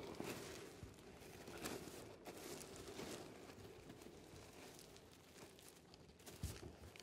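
Tarpaulin rustling and crinkling as it is spread out over a floor, with a soft thump about six and a half seconds in.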